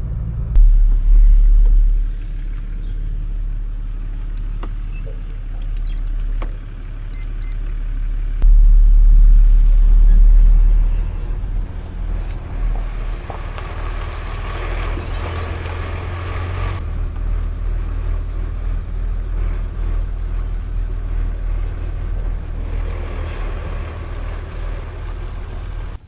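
Vehicle engine and tyre rumble heard from inside the cab of a ute driving slowly on dirt roads, with the window open. The rumble surges louder briefly about half a second in and again around nine to eleven seconds in, and a higher hiss joins it for a few seconds in the middle.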